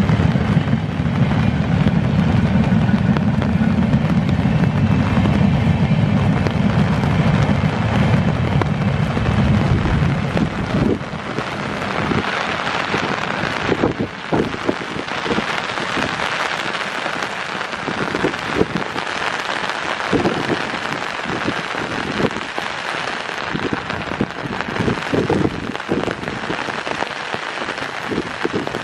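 Heavy rain falling, with a low rumble under it for about the first ten seconds that stops abruptly. After that the rain is a steady hiss with close drops tapping sharply and irregularly.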